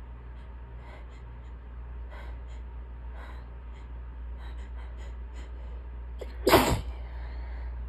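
A woman's single loud, brief sneeze about six and a half seconds in, after a few faint quick breaths as the tickle builds: an allergy sneeze.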